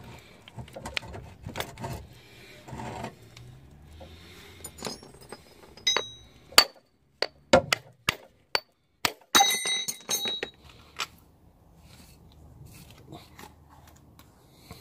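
Gloved hands working on a car's CV joint: rustling and handling noises, then a run of sharp metallic clinks and knocks through the middle, some ringing briefly, from metal parts and tools being handled.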